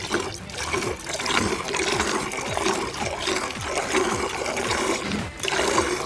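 Goat being milked by hand: jets of milk squirting into a plastic bucket in a quick, steady rhythm.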